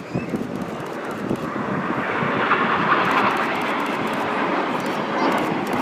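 Jet engine noise from a formation of display jets flying past. It grows louder over the first two seconds, then holds steady.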